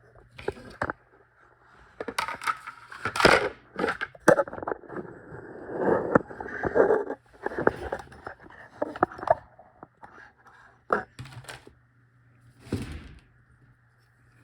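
Small metal parts of a gutted Abloy padlock being handled and gathered up: irregular clicks, knocks and scrapes of metal on metal.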